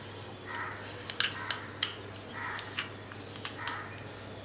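Crows cawing several times in the background, about once a second, with a scatter of sharp light clicks and taps from glassware as ginger-garlic paste is tipped onto raw chicken.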